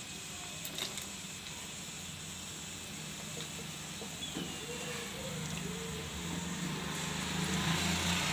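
Curry gravy simmering in a kadai on a gas stove, a steady soft hiss with a few light clicks of a bowl or utensil about a second in. A low hum comes in about halfway through and grows louder toward the end.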